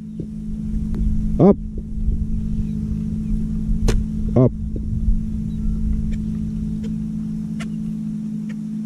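Steady low motor hum over wind rumble on the microphone. Two short calls break it, each rising then falling in pitch. A single sharp click comes just as the shotgun is raised.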